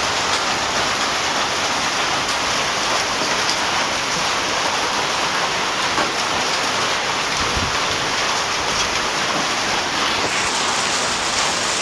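Heavy rain falling steadily, a dense, even hiss of drops with no letup.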